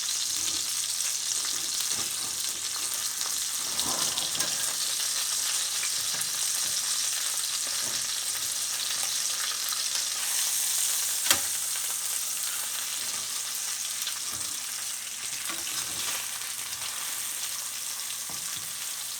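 Tilapia frying in hot oil in a pan, sizzling steadily, with scattered scrapes and clicks of a spatula working under the fish, which is stuck to the pan. One sharp clack comes about 11 seconds in.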